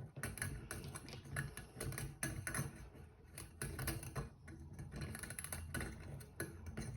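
Irregular light clicks and taps of small parts being handled as a new recoil spring is fitted onto the main barrel of a DeWalt DCN692 nail gun.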